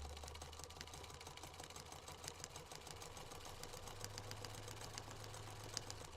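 Electric sewing machine running steadily: a faint low motor hum with rapid, even needle ticking.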